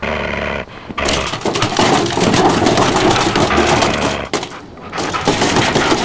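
A garbage can being knocked about and rummaged, with loud clattering and rustling mixed with animal-like growling noises.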